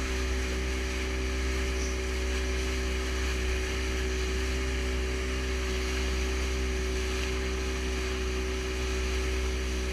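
Outboard motor of an open fibreglass fishing skiff running steadily at speed, with a constant engine hum. Water rushes and sprays off the hull, and wind buffets the boat-mounted microphone.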